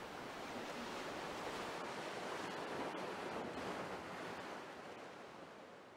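Sea waves washing in, a steady rush that swells to a peak near the middle and then fades out toward the end.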